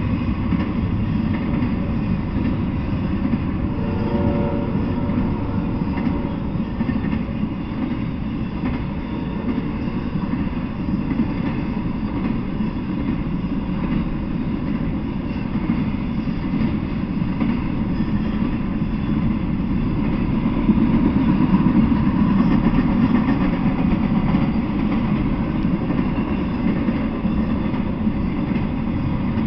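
Intermodal freight train rolling past, the steel wheels of its trailer-carrying flatcars making a steady low rumble on the rails, a little louder about three quarters of the way through.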